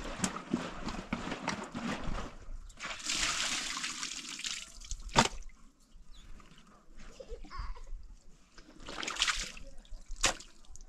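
Hands washing a bunch of fresh greens in water, with bursts of splashing and sloshing, the loudest a little after three seconds in. Two sharp clicks, one about five seconds in and one near the end.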